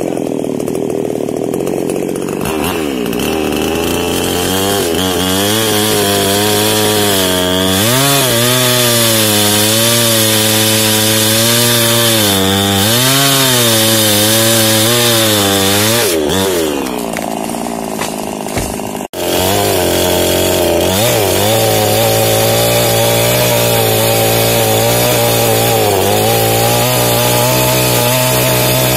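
Small two-stroke New Paxton chainsaw running, its engine speed rising and falling again and again, then sagging toward idle about sixteen seconds in. After an abrupt break it runs at a high, steady speed, cutting into a jengkol tree trunk.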